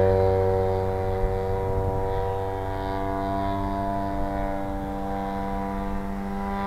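Engine and propeller of a 40% scale Sbach model aerobatic plane running steadily in flight, a steady buzzing drone. It gets a little quieter in the first second or so.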